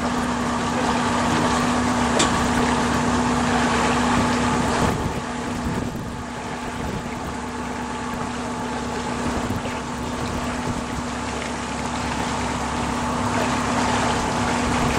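Pontoon tour boat's engine running steadily, a constant hum that holds one pitch, over an even rush of wind and water.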